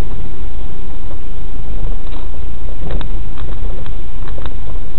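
Loud, steady rumble of a car's engine and road noise picked up by a dashcam microphone inside the car as it moves slowly, with a few light clicks or knocks between about three and four and a half seconds in.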